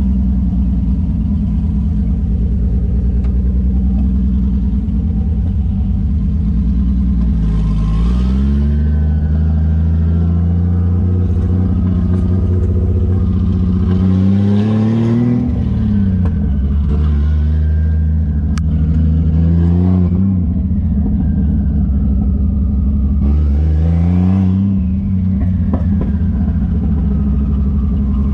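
Single-turbo 1JZ inline-six engine in a Nissan Silvia running at light cruise, rising in revs and dropping back four times. After each rise a turbo whistle glides down in pitch.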